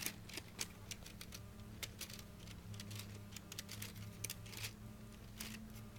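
LEGO Technic excavator's plastic gears and arm mechanism clicking irregularly, a few clicks a second, as the boom is worked up and down by hand.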